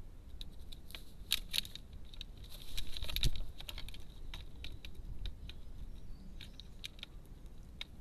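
Crows' beaks pecking and tapping at a fat-filled coconut shell feeder on a plastic tub: irregular sharp clicks and scrapes, busiest in the first half, with a louder scuffle about three seconds in.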